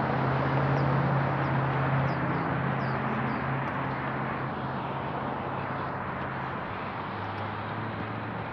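Street traffic noise with a motor vehicle's engine hum, loudest in the first few seconds and then fading and dropping in pitch as it passes. Over it, a bird gives a quick run of about five short chirps around two to three seconds in.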